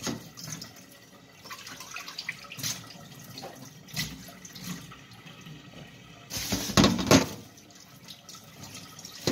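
Water running from a kitchen tap into a stainless steel sink, splashing irregularly as a guava and a bowl are rinsed under the stream. A louder burst about a second long comes about six and a half seconds in.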